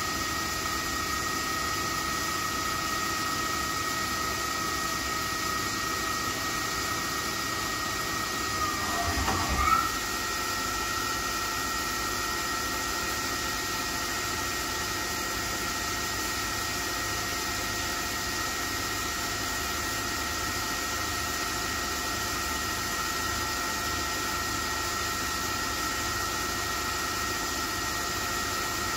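Okuma LB35 II CNC lathe running a program with no cutting: a steady machine whine over a hiss as the turret traverses along the bed. About ten seconds in, the whine dips in pitch, then settles slightly higher, with a brief louder noise.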